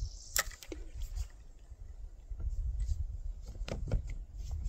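Several sharp clicks and knocks from fishing gear being handled in a small boat, over a low, uneven rumble.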